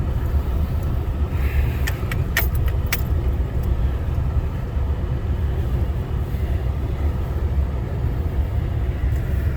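Vehicle driving slowly along a packed-snow driveway: a steady low engine and road rumble, with a few short clicks or jingles about two to three seconds in.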